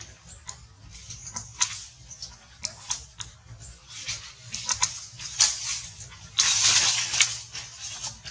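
Leaves and twigs rustling and snapping in a tree as monkeys move and a baby macaque grabs at a leafy twig: a string of short sharp clicks, with a louder burst of rustling about six and a half seconds in that lasts nearly a second.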